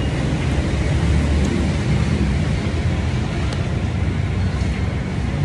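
Steady low rumble of road traffic, engines running without let-up.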